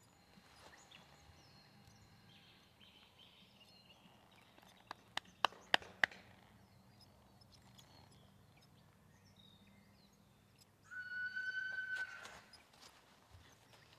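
Faint bird calls over quiet outdoor air. About five seconds in comes a quick run of five sharp clicks, and near the end a single whistle-like call is held for about a second.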